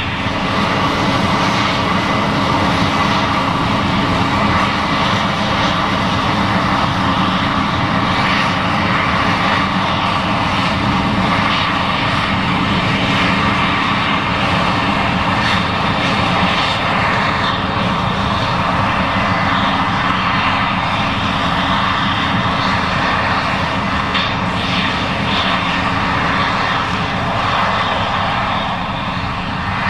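Case IH 7140 Axial-Flow combine running steadily while harvesting corn: a loud, even diesel drone mixed with the rush of the threshing machinery, with no breaks or changes.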